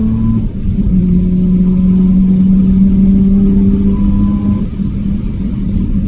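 Mazda RX-7 FD3S's turbocharged 13B rotary engine pulling hard under acceleration on track, its note climbing steadily between two upshifts, one about half a second in and one near five seconds. A faint high whine rises and falls with it.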